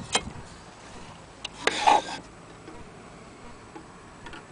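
Handling noise: a couple of sharp clicks, then a brief rub or scrape about two seconds in.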